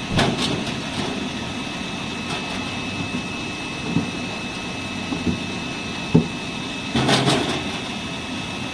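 Apple washing machine running: a steady mechanical hum and rush with a thin high whine, broken by a few short knocks, the loudest cluster about seven seconds in.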